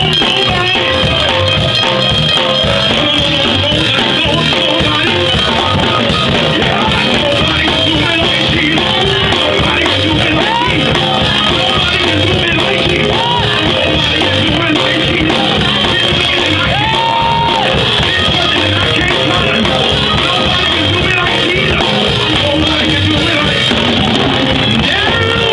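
Gospel praise singing: a woman sings lead into a microphone over amplified instrumental accompaniment, loud and continuous.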